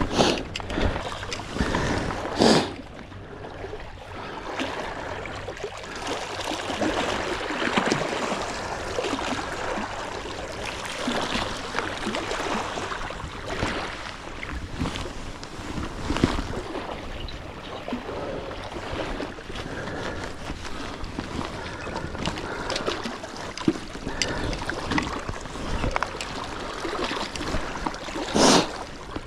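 Sea water sloshing and lapping with wind noise, broken by scattered small clicks and two louder knocks, one a couple of seconds in and one near the end.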